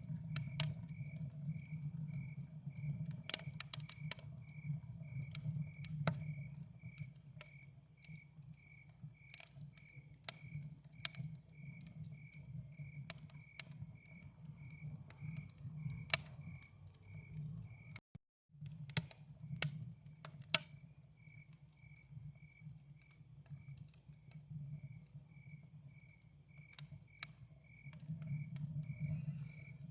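Campfire crackling, with irregular sharp pops and snaps of burning wood over a low steady rumble, while a cricket chirps in an even rhythm, about three chirps every two seconds. All sound cuts out for a moment a little past halfway.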